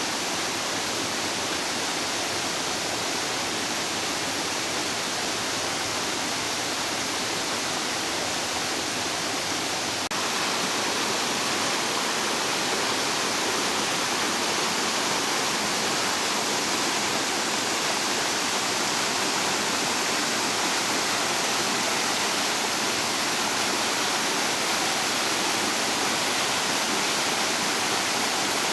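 Water rushing and splashing down a small rocky waterfall in a steady, even roar. It grows slightly louder about ten seconds in.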